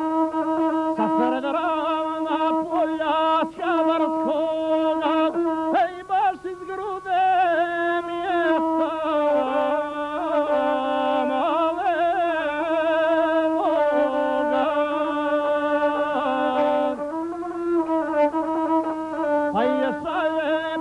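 Gusle, the single-string bowed Balkan fiddle, played solo: a steady held pitch with a wavering melody of quick trills and slides above it.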